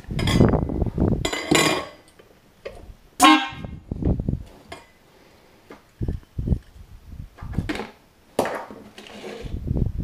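The original pair of chrome trumpet marine air horns, fed from an air compressor, sounding in a few short blasts with spurts of rushing air; the clearest blast is about three seconds in. The horns are working.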